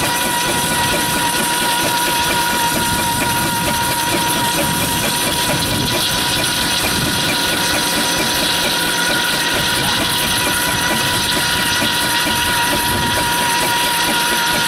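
Steam road engine running, with a steady hiss of steam and a steady high tone over it.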